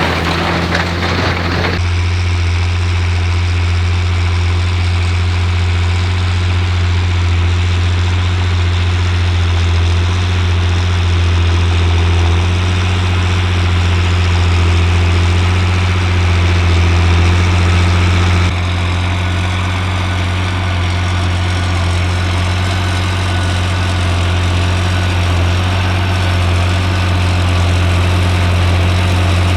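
John Deere 8300 tractor's six-cylinder turbo diesel running steadily under load while pulling a seven-furrow plough, a deep even drone. The sound changes abruptly twice, about two seconds in and again past the middle.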